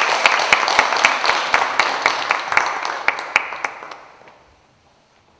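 Audience applause: many hands clapping, dying away about four seconds in.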